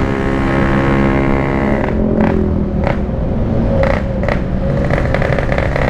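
Yamaha RX-King two-stroke motorcycle engine running steadily under way through a Packing Power aftermarket exhaust, held back gently because the freshly rebuilt engine is still being broken in.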